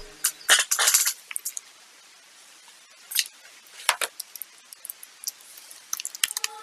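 Scattered sharp clicks and taps from a computer mouse and keyboard: a few irregular ones in the first second, then single clicks a few seconds apart and a run of small ones near the end.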